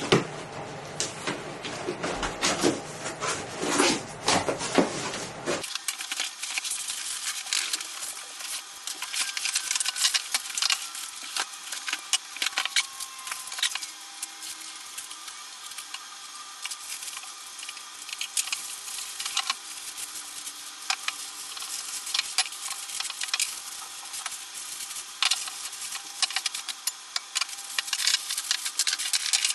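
Plastic packaging bags crinkling and rustling while parts are unwrapped, with scattered clicks and light knocks of handled parts. About six seconds in, the sound suddenly turns thinner and higher.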